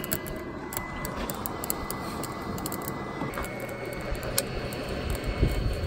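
BioLite wood-burning camp stove running with its built-in fan whirring in a steady high whine that steps up slightly in pitch about three seconds in, over the rush of the fan-fed fire and scattered small crackles from the burning wood.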